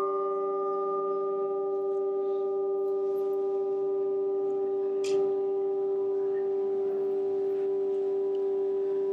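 A hanging metal bell plate rings on after a mallet strike: one strong steady low tone with several fainter higher overtones, slowly dying away. A light tap comes about five seconds in.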